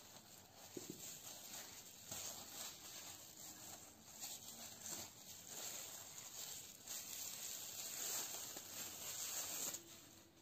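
Plastic cling wrap crinkling and rustling as gloved hands stretch it and press it down around the rim of a glass bowl, in irregular bursts that stop suddenly near the end.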